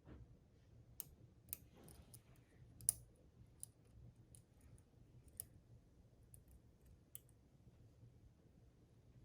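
Faint, scattered metallic clicks of a lock pick and tension wrench working the pin stack of a padlock's euro cylinder, at irregular intervals, the sharpest about three seconds in.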